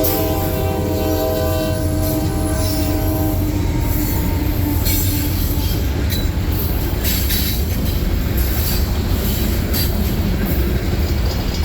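Freight train passing: the diesel locomotive's multi-chime air horn holds one chord that cuts off about three and a half seconds in, over the steady rumble of the train's engine and rolling wheels with clicks from the rail joints.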